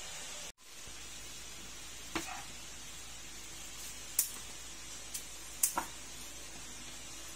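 Light clicks and taps of dishes and kitchen things being handled on a table, about five in all, over a steady background hiss.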